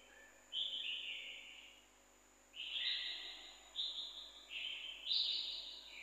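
A bird calling in a series of short high phrases, each stepping down in pitch, with brief silent gaps between them.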